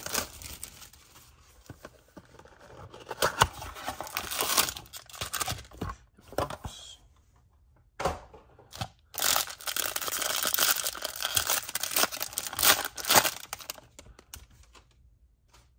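Tearing and crinkling of trading-card packaging: a sealed cardboard hobby box torn open, then a foil pack wrapper torn and crinkled. The sound comes in two spells with a short pause about seven seconds in, and dies away near the end.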